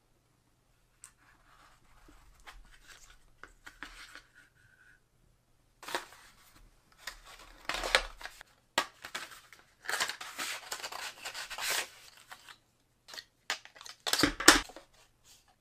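Cardboard phone packaging being handled during an unboxing: the lid, tray and inner card inserts slide, rustle and scrape, with a longer scraping stretch about ten seconds in and a sharp loud handling noise near the end.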